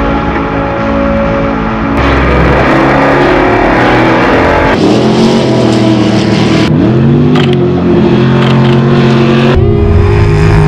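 Off-road trophy truck engines revving and running hard, in a string of short clips cut one to the next; around the middle the engine pitch swings up and down.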